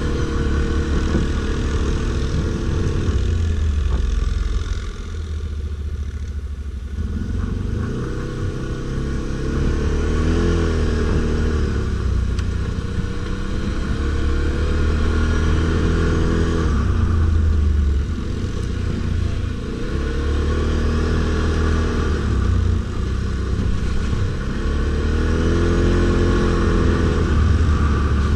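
Stels Guepard 850 ATV engine running under load, its pitch rising and falling in repeated throttle swells roughly every five seconds, with a quieter, lower stretch about five seconds in.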